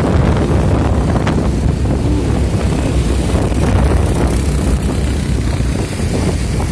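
Vehicle travelling along a road: a steady, loud rumble of engine and road noise with wind buffeting the microphone, and a short knock about a second in.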